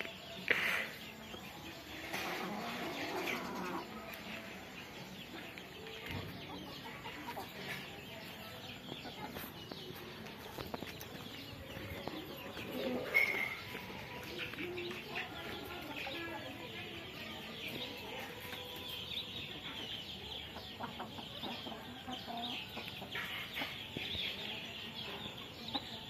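Chickens, mostly roosters, clucking intermittently and fairly quietly, with a louder call about half a second in and another around the middle.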